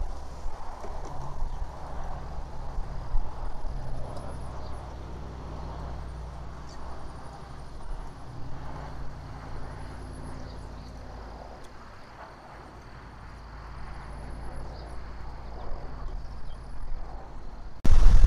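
Outdoor nest-cam sound: a low rumble underneath, with a small songbird singing faint, high, rising phrases every second or two in the background. Just before the end the rumble jumps suddenly much louder.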